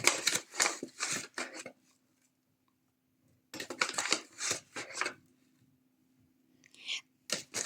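A spoon scraping and stirring in a bowl of chicken-liver batter with flour, in two spells of quick strokes a couple of seconds apart.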